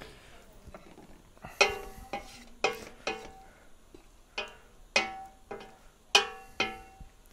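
Wooden spoon knocking against the sides of a stainless steel stockpot while stirring and tossing pasta in oil. About nine ringing metallic clanks, roughly half a second apart, with a short pause near the middle.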